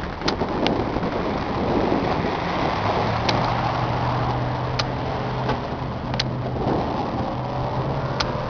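John Deere 2950 tractor's diesel engine running steadily, its low hum firming up about three seconds in, with a few sharp clicks over it.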